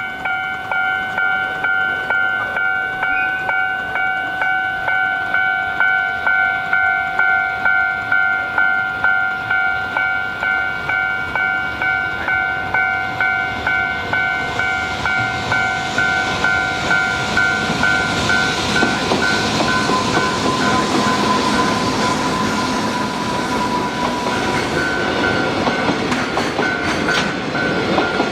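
Japanese level-crossing warning bell ringing about twice a second. About halfway through, an EH500 electric freight locomotive and its train pass over the crossing, and the wheels' rolling clatter rises over the bell.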